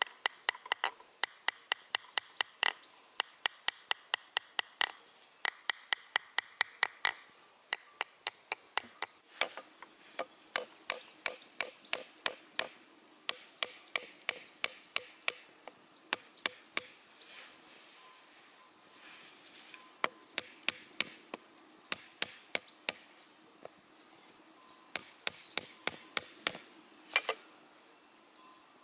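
A whole coconut being struck again and again with a knife to crack its shell open: sharp knocks, about three a second at first, then slower and uneven, with one louder knock near the end as the shell gives.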